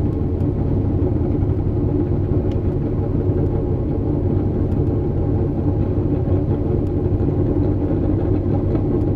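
Dirt modified race car's V8 engine idling steadily, heard from inside the cockpit as an even low rumble.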